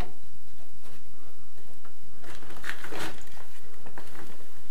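Handling noise as an adjustable wrench and pipe valve fittings are handled: a click at the start, then a cluster of scraping and clicking about two to three seconds in.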